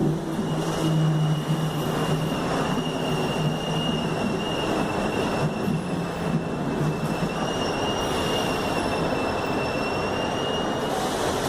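Mafersa/Hitachi Series 1700 electric multiple unit running, its rumble overlaid by a steady high-pitched squeal held for about ten seconds. A low hum underneath fades out near the end.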